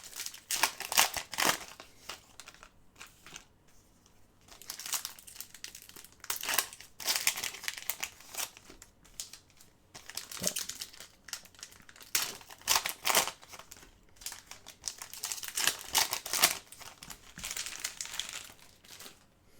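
Trading card pack wrappers being torn open and crinkled by hand, in several irregular spells of crackling with short pauses between them.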